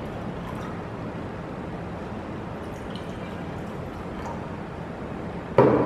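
Tap water pouring from a glass jug into drinking glasses, a steady splashing fill, first into one glass and then into a second. A sudden louder sound comes just before the end.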